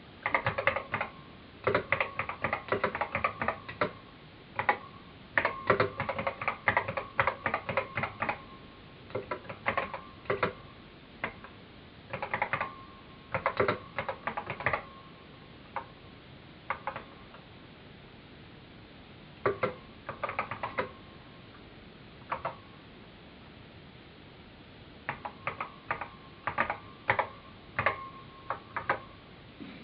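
Typing on an original Apple Macintosh keyboard: runs of rapid key clicks broken by short pauses, with scattered single keystrokes in the middle stretch and a brief gap before a last run near the end.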